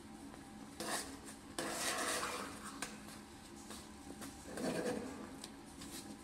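Metal spoon scraping and knocking against a nonstick frying pan as thick semolina halwa is stirred and folded, in a few separate strokes with small clicks between.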